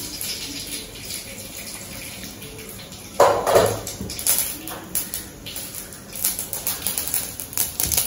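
Mustard seeds sizzling in hot oil in a kadai, starting to crackle and pop about halfway through, the pops coming faster toward the end: the seeds spluttering as the tempering for rasam begins. A brief louder sound comes about three seconds in.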